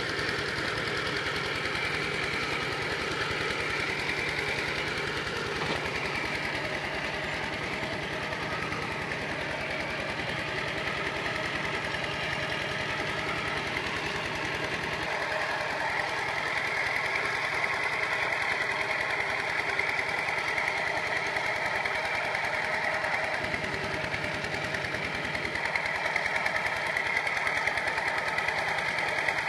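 Kubota RT120 walking tractor's single-cylinder diesel engine running steadily with a fast, even chugging while it drives cage wheels through paddy mud, growing a little louder about halfway through.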